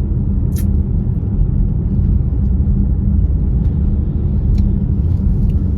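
Steady low rumble of a car driving, heard from inside the cabin: road and wind noise as strong gusts buffet the car. A short sharp click about half a second in.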